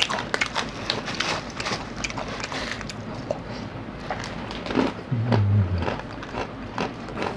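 Small plastic snack packet crinkling and crackling as it is handled, with a person chewing a snack and one low closed-mouth "mm" hum about five seconds in.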